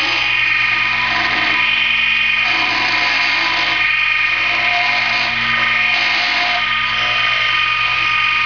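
Small lathe running steadily, its motor giving a constant whine of several steady tones as it spins a topwater popper lure body. A rougher hiss swells and fades a few times as the spinning piece is worked by hand.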